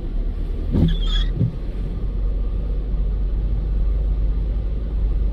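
Strong hurricane wind buffeting the microphone: a steady, heavy low rumble, with two brief sounds about a second in.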